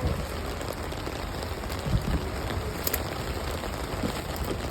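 Rain falling steadily, an even hiss with scattered drops ticking, and a low thump about two seconds in.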